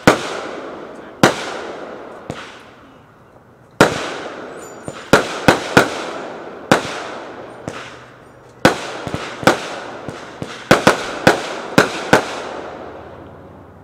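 A 200-gram firework cake firing shot after shot, each aerial burst a sharp bang with a long echoing tail. The bangs come at uneven intervals and fall into a quick cluster near the end before dying away.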